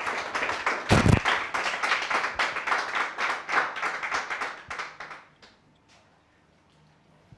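A small audience applauding for about five seconds, the clapping thinning and dying away. There is a loud, low thump about a second in.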